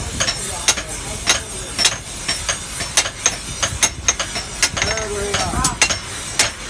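Hammer blows on hot steel at an anvil, forging a chapati machete blade: sharp, irregular metallic strikes several a second.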